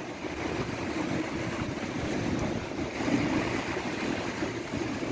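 Sea swell washing against the rocks, a steady rushing noise, with wind buffeting the microphone.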